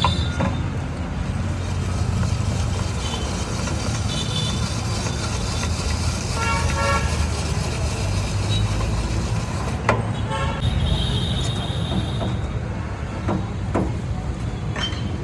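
Busy street ambience: a steady traffic rumble, with a vehicle horn honking in short repeated blasts about six to seven seconds in.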